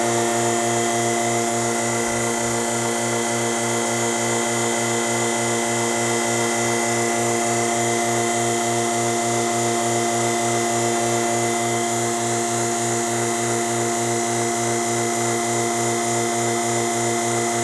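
Gast vacuum pump running steadily, a constant hum with a fast, even pulse, holding vacuum on the bagged mould during the resin infusion.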